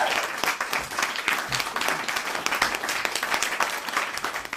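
Dense patter of water drops falling on the lotus pond's water and leaves, fading out near the end.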